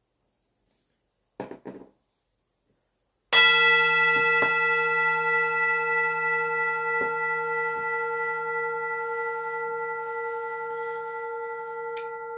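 A short soft rustle, then about three seconds in a bell-like metal instrument is struck once and rings on in a steady chord of tones, slowly fading.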